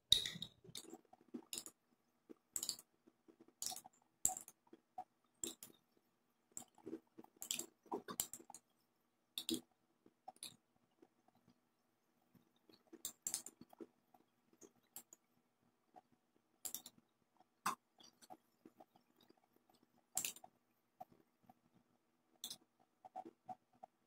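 Faint, irregular crinkles and clicks of tissue paper and a spoon being handled against the skin, about one every second, over a faint steady hum.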